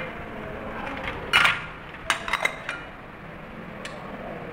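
Glass petri dishes and glass flasks clinking against each other and a metal tray as they are set down and arranged. The sharp ringing clinks come one at a time: the loudest about a second and a half in, a quick run of several a little after two seconds, and a last one near the end.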